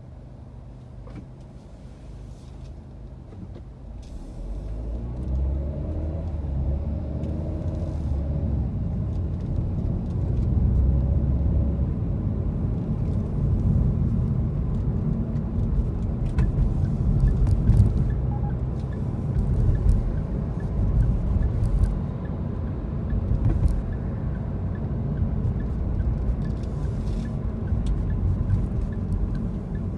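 Car interior noise: low, quiet rumble while stopped, then the car pulls away about four seconds in, its engine and tyre rumble rising and then running steadily on the wet city road.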